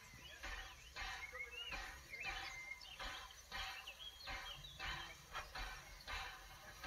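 Faint, evenly spaced exhaust beats, about two a second, from the Isle of Wight Steam Railway's O2 class 0-4-4 tank engine W24 Calbourne pulling away from a station. A bird chirps over it for the first few seconds.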